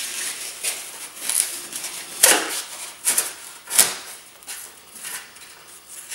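Floral foam being pressed and crammed down between potted orchids: irregular rustling and scraping of foam, pots and leaves, with two louder scrapes a little past two seconds and near four seconds in.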